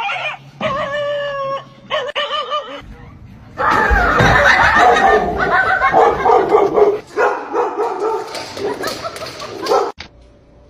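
A dog making short, wavering, high cries, then a longer, louder and busier stretch of vocalising from about four seconds in.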